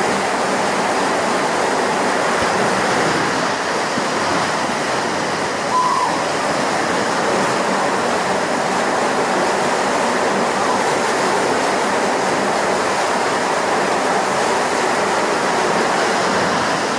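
Steady, loud rush of falling water close by, with a brief louder spot about six seconds in.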